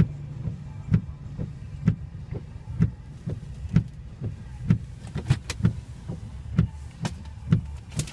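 Inside a truck's cab: the engine idling with a steady low hum, and a regular thump about once a second. In the last few seconds, short sharp clicks join in.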